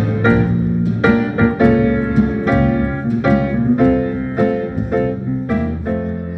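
Instrumental keyboard music playing chords, with a new note or chord about every half second, slowly getting quieter.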